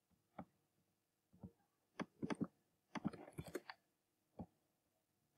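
Faint computer mouse and keyboard clicks: a few single clicks spaced out, then a quick run of clicks about three seconds in.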